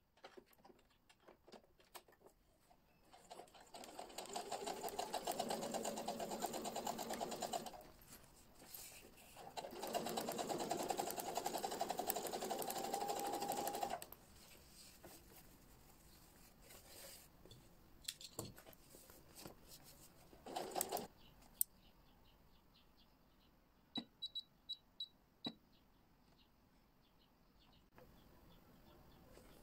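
Electric domestic sewing machine running in two steady runs of several seconds each, stitching a narrow rolled hem with a 2 mm hemmer foot. Scattered clicks and small knocks from handling the machine and fabric come between and after the runs, with a row of quick ticks near the end.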